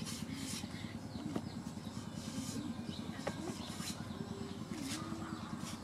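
A steady low engine rumble with a few faint clicks.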